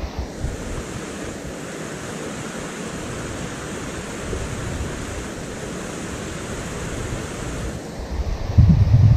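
Steady rush of river rapids. Near the end, gusts of wind buffet the microphone with a low rumble.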